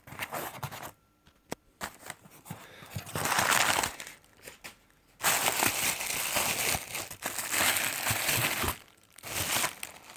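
Parcel packaging crinkling and rustling as it is opened by hand, in two stretches: a short one about three seconds in and a longer one from about five seconds until shortly before the end.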